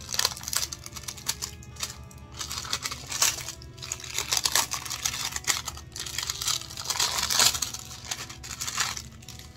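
Clear plastic wrapping crinkling and crackling in a pair of hands as it is pulled off a stack of shipping labels, in surges that grow loudest about seven seconds in. Background music plays underneath.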